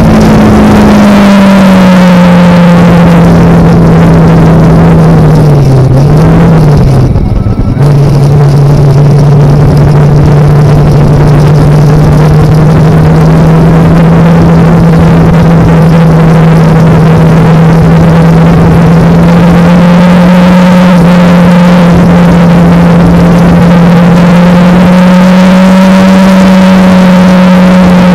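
Kawasaki Ninja parallel-twin motorcycle engine at cruising speed under heavy wind noise. The engine note sags and briefly drops out about seven seconds in, as on a gear change, then holds steady and slowly rises again.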